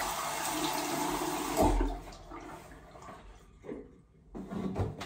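Water running from a bathroom sink tap and splashing as a face is washed to take off makeup. A heavier thump comes about a second and a half in, and the water sound drops to a quieter level after about two seconds.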